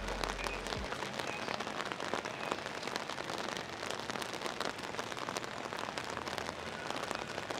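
Heavy rain falling on wet paving stones: a dense, steady patter of drops.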